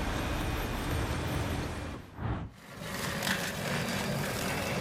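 A heavy machine's engine running steadily with a low rumble. It drops away briefly about two seconds in, then comes back.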